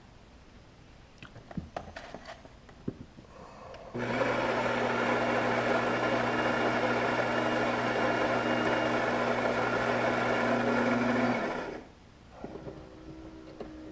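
Automatic bean-to-cup coffee machine's built-in grinder grinding coffee beans. It starts suddenly about four seconds in, runs steadily for about seven seconds, and cuts off, with a few faint clicks before it.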